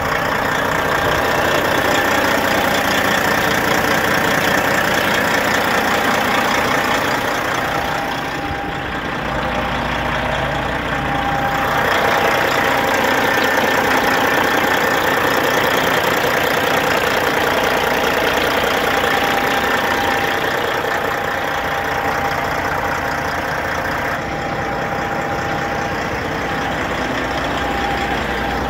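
International semi-truck's Caterpillar diesel engine idling steadily, heard close up at the open engine bay. It turns a little quieter about eight seconds in and again near the end.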